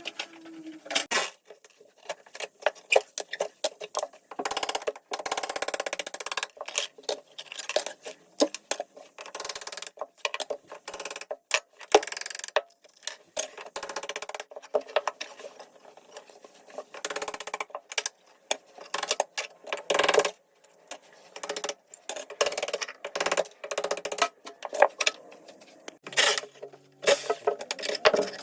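Ceramic wall tiles being chipped off a kitchen splashback: a long run of irregular sharp knocks and cracks.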